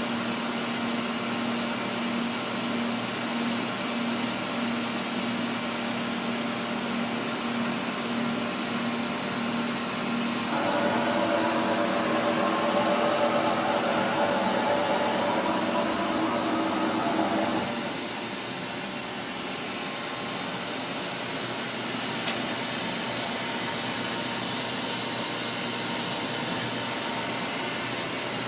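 1998 OKK PCV-55 CNC vertical mill running under power: a steady mechanical whir with a thin high whine. About ten seconds in, a louder whirring tone joins. At about eighteen seconds it stops together with the high whine, leaving a quieter steady hum.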